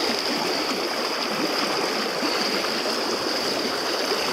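Stream water rushing steadily over rocks, close by, with a constant thin high tone above the rush.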